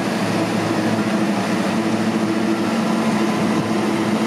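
An engine running steadily: a constant low hum with a few steady tones and no change in pitch or level.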